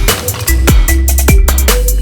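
Electronic dance music in a drum-and-bass/dubstep style: a deep sustained bass, drum hits, and short falling pitch sweeps.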